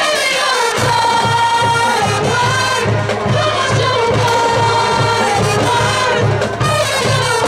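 A small group of vocalists singing together through microphones, holding long notes over marching band accompaniment with a steady low beat.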